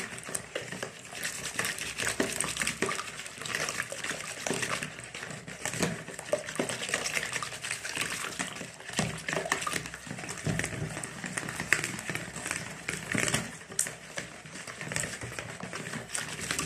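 Eggs being beaten by hand with a plastic balloon whisk in a plastic bowl: a quick, unbroken run of whisk strokes through the liquid egg.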